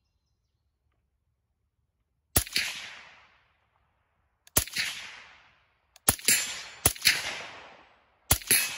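Integrally suppressed 300 Blackout AR-15 firing five unevenly spaced shots of 150-grain supersonic ammunition, the first about two and a half seconds in. Each shot is a sharp crack followed by about a second of fading echo.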